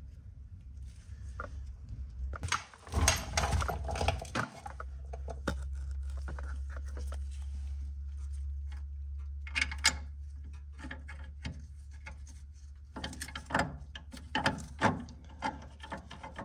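Metal clinks, taps and scraping of a suspension bolt and its hardware being worked in by hand while fitting a new ball joint, in three bunches of clicks, over a steady low hum.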